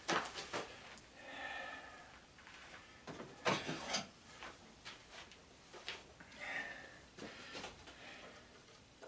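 Scattered light knocks and clicks of tools and metal parts being handled while a sander is dismantled, with a pair of sharper knocks about three and a half seconds in.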